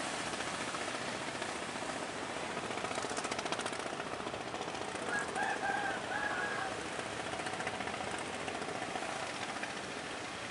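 Fishing boat's engine chugging with a fast, even beat as it runs in through the surf, over the wash of breaking waves. A brief high call comes about halfway through.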